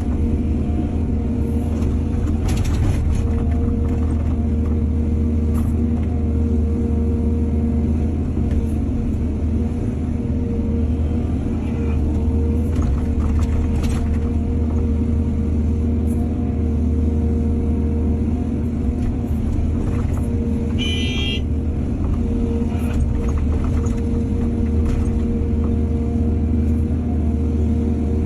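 Excavator diesel engine running steadily with a deep, even drone, with a few short clanks scattered through. A brief high-pitched squeal comes about three-quarters of the way through.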